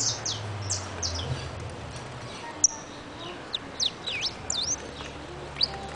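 Saffron finch singing: runs of quick, sharp chirps that sweep up and down in pitch, with a pause of about two seconds in the middle, over a steady low rumble of city background.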